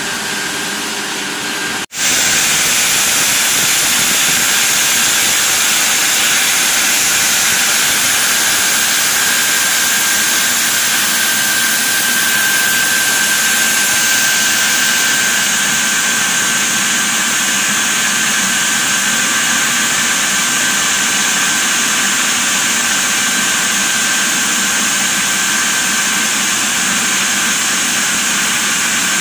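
Sawmill log band saw (headrig) running and sawing through a log: a loud, steady mechanical hiss with a high steady whine. It breaks off briefly about two seconds in, then comes back slightly louder.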